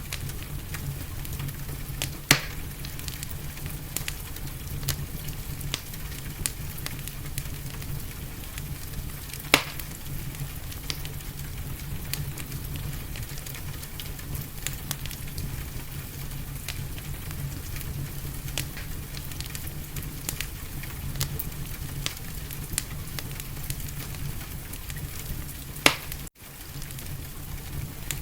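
Wood fire in a fireplace crackling, with many small snaps over a steady low rumble and hiss, and three sharp louder pops spread through. The sound drops out for an instant near the end.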